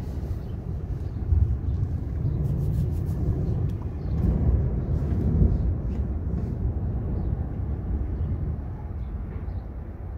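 Thunder rolling in a thunderstorm: a long, low rumble that swells around four to five seconds in and then slowly dies away.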